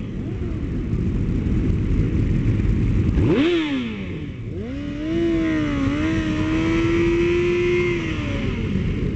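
Motorcycle engines in a group ride, with a quick rev up and down about three seconds in. From about five seconds a sport bike's engine is held at high revs during a burnout, then drops away near the end.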